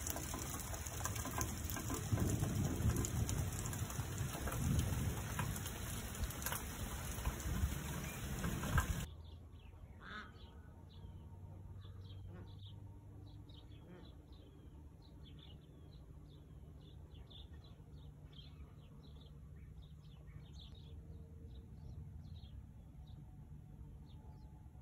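Steady rain falling, which cuts off abruptly about nine seconds in. After it, small birds chirp faintly and intermittently.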